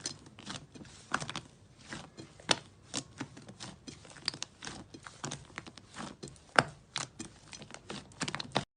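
Slime being squeezed and poked by hand, making irregular sticky clicks and pops, a few each second. It cuts off abruptly near the end.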